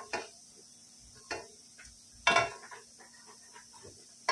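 Perforated skimmer scraping and knocking against a steel kadhai as fried peanuts are scooped out: a few short scrapes, the loudest a little after two seconds in.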